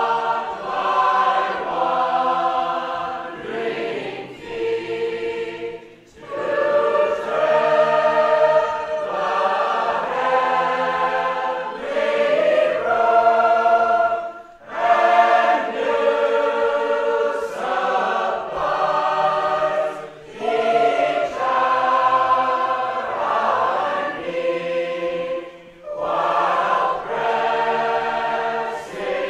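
A large group of Sacred Harp singers singing a shape-note hymn tune unaccompanied, in full voice and in harmony, with brief breaks between phrases.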